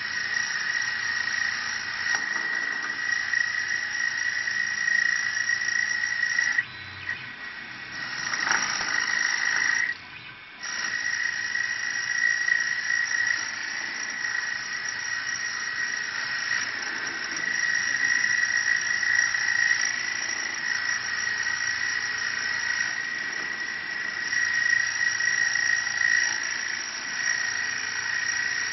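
Mini CNC wood lathe turning a wooden cup blank, the tool cutting with a steady high-pitched whine over a hiss of flying shavings. The cutting noise breaks off briefly twice, about seven and ten seconds in.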